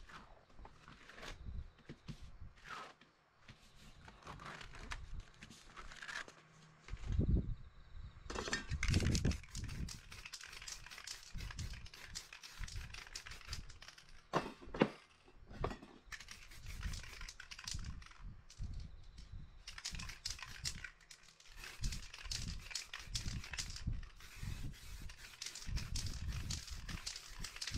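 Paper crinkling and rustling as a paint-smeared sheet is peeled off a wet spray-painted board. Then an aerosol spray-paint can hisses in repeated passes over the board.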